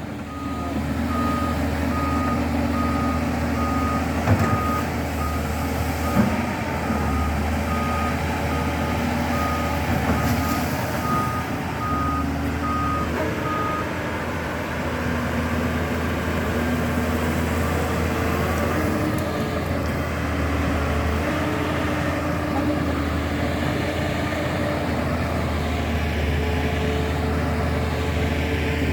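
Backhoe's engine running steadily while its reversing alarm beeps at a regular pace, about once a second; the beeping stops about halfway through and the engine runs on, its note shifting as the machine works.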